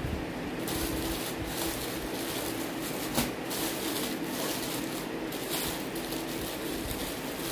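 Rustling and handling of folded saris as they are pulled from a stacked pile, in irregular scuffs and crackles. A steady low hum runs underneath.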